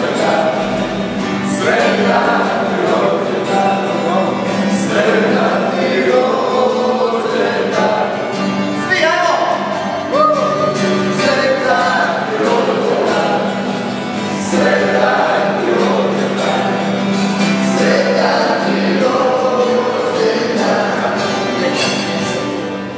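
A group of voices singing a song together, accompanied by a strummed acoustic guitar.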